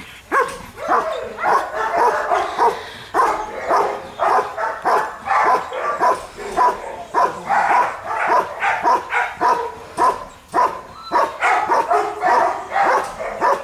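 A German shepherd barking steadily at a helper hidden in a training blind, about two barks a second: the guard dog's bark-and-hold alert on the found decoy.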